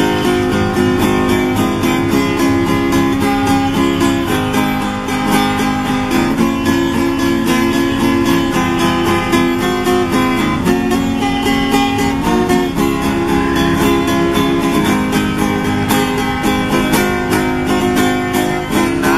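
Acoustic guitar strummed in a steady rhythm, playing an instrumental interlude between the sung verses of a pop ballad.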